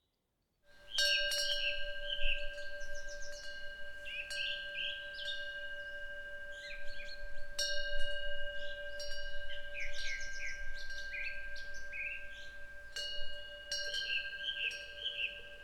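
Korean temple eave wind bell (pungyeong) struck by its swinging clapper three times, each stroke ringing on in long, steady tones, after a moment of silence. Small birds chirp over the ringing.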